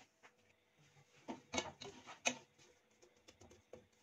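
A spatula scraping and knocking against a pot as sliced onions are stirred in oil: a few short scrapes and knocks in the middle, then a few faint ticks.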